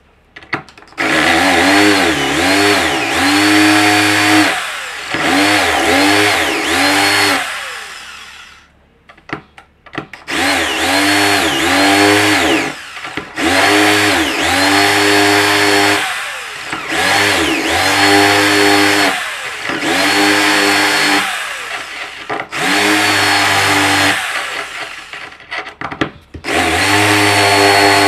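Rotary hammer in drill mode, no hammering, turning a 1/4-inch carbide masonry bit into hard porcelain tile kept wet with water. The motor runs in about eight spells of a few seconds with short stops between, its pitch dipping and recovering as the bit bites.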